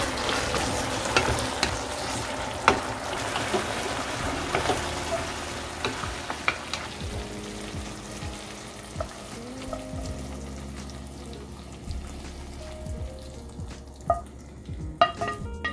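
Food sizzling in oil in a frying pan while being stirred, with sharp clicks of the utensil against the pan. The sizzle fades about halfway through, and soft background music comes in.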